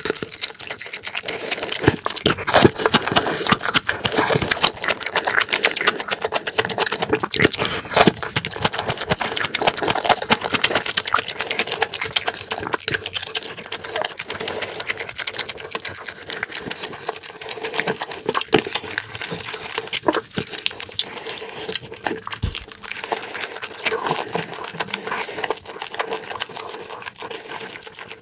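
Close-miked eating sounds: a person chewing with a full mouth, a fast, dense run of wet smacking clicks that goes on without pause.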